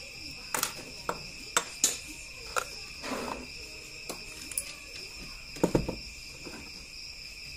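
Small metal clicks and taps as a 28 mm racing carburetor is handled: its top cap comes off and the slide, spring and needle are pulled out and set down. The loudest is a single knock just before six seconds in. A steady high-pitched whine runs underneath.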